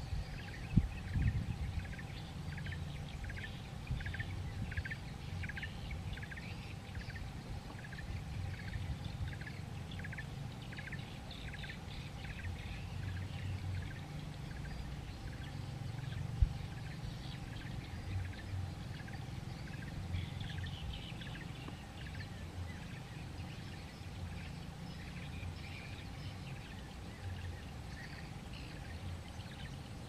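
Birds chirping: short calls repeated about twice a second through the first half, thinning later, over a steady low rumble. Two brief knocks, about a second in and about halfway through.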